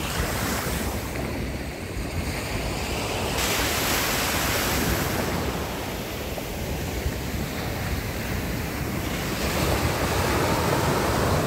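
Sea waves washing onto a beach, one surge swelling about three and a half seconds in and another near the end, with wind rumbling on the microphone.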